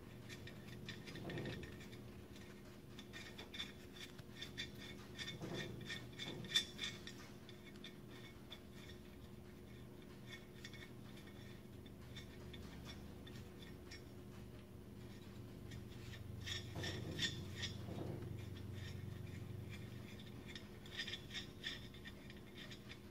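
Faint metal-on-metal clinks and scrapes of lug nuts being handled and turned by hand on the wheel studs of a drum-brake hub, coming in a few short clusters.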